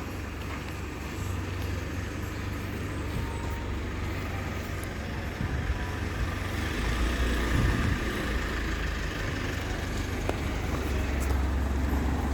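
Steady low rumble of motor vehicle noise, growing louder about halfway through.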